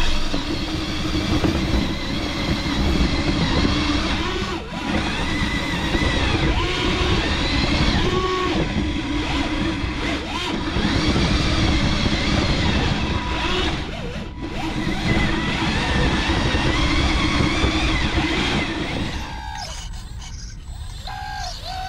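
Small electric motors of radio-controlled scale construction models running, whining in pitched tones that rise and fall, over a steady loud rumble. The rumble drops away near the end, leaving a wavering whine.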